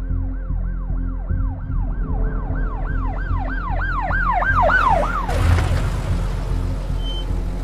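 Emergency-vehicle siren in a fast yelp, a rising-and-falling wail about three times a second, growing louder and then cutting off about five seconds in, followed by a short rush of noise. A steady low drone runs underneath.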